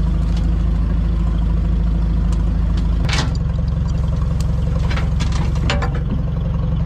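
Tractor engine running steadily, with its note shifting about halfway through and a few knocks and clanks over it.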